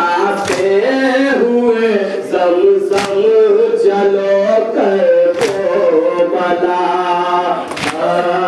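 Men chanting a nauha, a sung Shia mourning lament, in a steady melodic line, with a sharp strike about every two and a half seconds keeping time.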